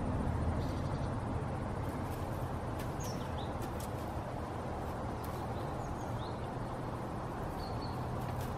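Outdoor background noise: a steady low rumble, with a few short, high bird chirps about three seconds in, again around six seconds, and near the end, and occasional faint clicks.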